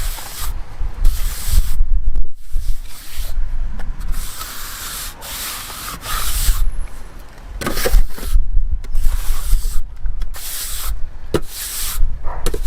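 Steel plastering trowel spreading wet sand and cement render across a wall: repeated scraping strokes, each under a second, with short pauses between them.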